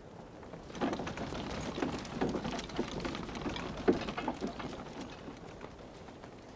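Busy street sounds: an irregular patter of footsteps and small knocks, loudest through the middle few seconds, with one sharp knock about four seconds in.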